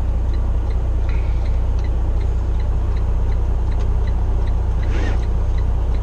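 Semi truck's diesel engine running steadily as the rig drives slowly, heard from inside the cab as a deep steady drone, with a faint regular ticking about two or three times a second.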